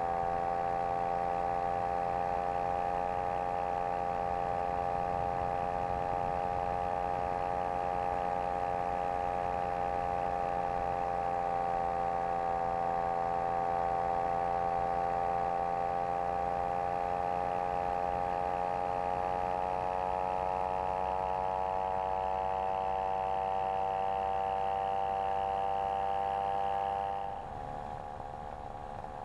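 Dragonfly SSDR microlight's engine and propeller running steadily at cruise power in flight, heard from a camera on the wing. Near the end the engine note changes and gets quieter as the power is eased back.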